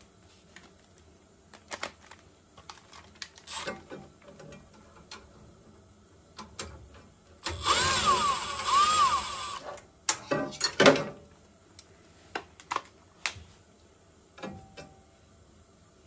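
Cordless screwdriver running for about two seconds halfway through, its motor whine rising and falling in pitch, as it backs out the mounting screw of a furnace's hot surface igniter. Scattered clicks of handling surround it, and a sharp clatter comes soon after.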